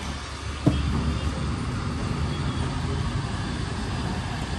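Steady low rumble of street traffic and background noise, with one sharp knock a little under a second in.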